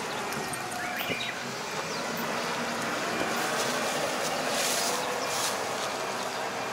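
Farm tractor diesel engine running steadily.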